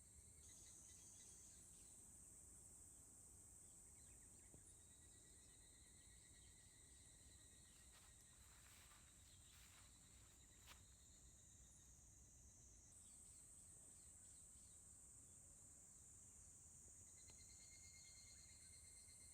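Faint insects calling: a steady high-pitched buzz with a quieter pulsed trill under it, and a few soft clicks about eight to eleven seconds in.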